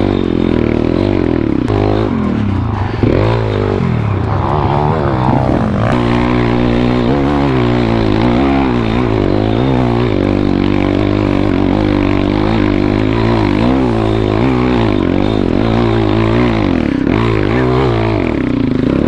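MRF 140 pit bike's single-cylinder four-stroke engine under way off-road, revving up and dropping back again and again as the throttle is worked.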